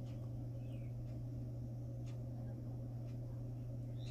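Steady low electrical hum, with a faint chirp about a second in.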